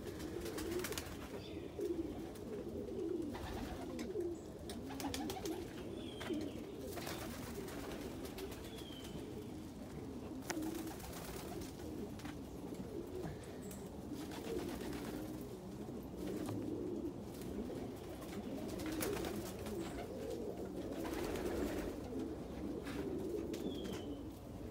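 Domestic pigeons cooing continuously in a low, wavering drone, with occasional short clicks and a few faint high chirps.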